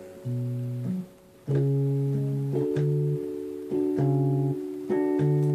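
Electric keyboard playing held chords with a separate bass note under each, changing every second or so, with a brief gap about a second in.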